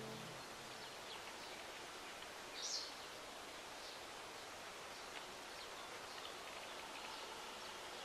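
Faint outdoor ambience: a steady soft hiss with one short, high bird chirp about two and a half seconds in and a few fainter chirps after it.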